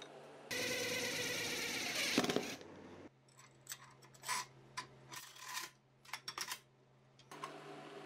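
About half a second in, a loud whirring noise lasts about two seconds. Then come a series of light metallic clinks and taps as aluminum angle and threaded steel rods are handled and fitted on the workbench.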